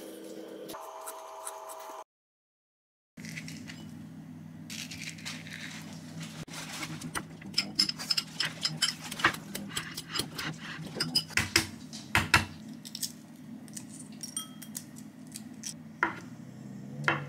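A metal spoon clinking and scraping against a ceramic bowl in quick, irregular strokes as diced avocado is stirred. Near the end a knife knocks on a wooden cutting board while slicing a boiled egg. A steady low hum runs underneath, and there is a second of silence early on.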